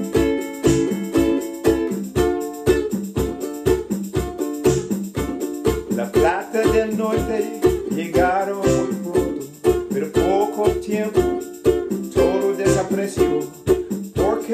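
Acoustic ukulele strummed in a steady rhythm, with a man singing over it from about six seconds in.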